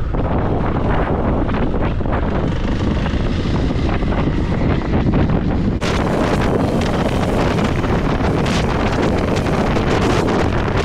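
Heavy wind buffeting on the microphone over the Kawasaki KLX300's single-cylinder engine running while the bike rides a dirt two-track. The sound turns abruptly brighter about six seconds in.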